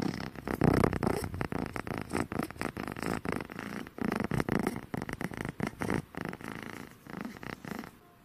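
A cat purring close to the microphone, the rapid pulsing purr surging and easing with each breath, then fading out near the end.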